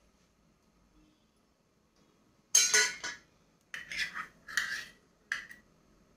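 Kitchen utensils clattering: a spoon knocking and scraping against a container, loudest in a cluster about two and a half seconds in, then three shorter bursts.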